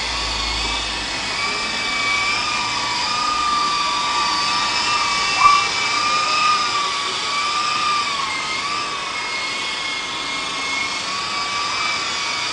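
Walkera HM 53-1 radio-controlled helicopter's electric motor and rotors running with a steady high whine, its pitch rising and falling slightly.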